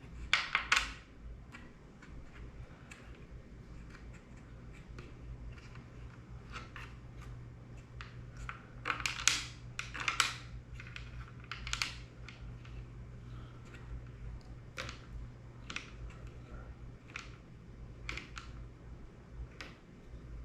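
Scattered small clicks and taps of plastic drone parts and small components being handled and fitted, with the louder ones about half a second in and again around nine to twelve seconds in, over a steady low hum.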